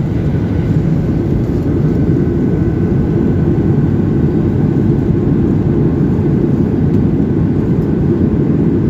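Boeing 737-700 cabin noise in flight after takeoff: a steady low rumble of the jet engines and rushing air, with a faint steady whine above it.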